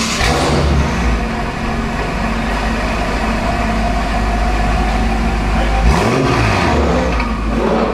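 BMW M5 F10's twin-turbo V8 running through an Akrapovic exhaust just after a cold start. It idles steadily, with a brief rev blip about six seconds in that rises and falls back.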